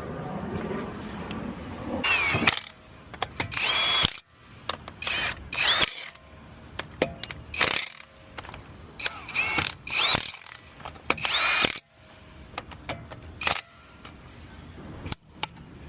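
Impact wrench running in a series of short bursts, its motor whine rising and falling in each, as it runs lug nuts on to refit a wheel.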